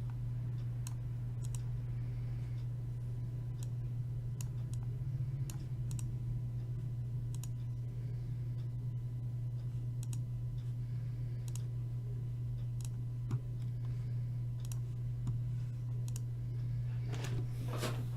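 Room tone dominated by a steady low hum, with scattered sharp clicks every second or so. A brief louder rustling noise comes near the end.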